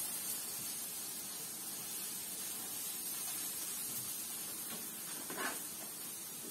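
Onion and carrot frying in oil in a pan: a steady sizzle, with one brief louder sound about five seconds in.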